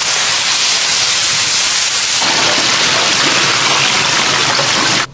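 Loud, steady sizzling: ground-beef balls being smashed onto a hot flat-top griddle for smash burgers. About two seconds in it cuts to battered chicken frying in a deep fryer, with the hot oil bubbling and hissing.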